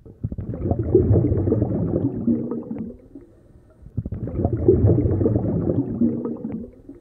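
Bubbling, gurgling rumble of air bubbles in water, coming in two surges of about three seconds each with a short lull between them.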